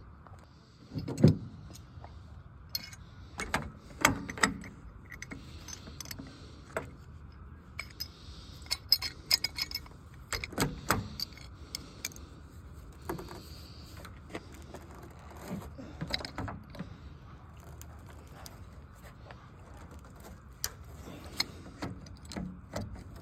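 Hand tools working the drain valve off an old water heater: scattered metallic clinks, knocks and rattles, with short pauses between them.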